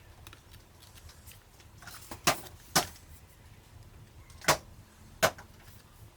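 Four sharp clicks, the first two about half a second apart and the last two about three-quarters of a second apart, with fainter small ticks between them: small tools and parts handled while taking apart a Canon T6/1300D camera.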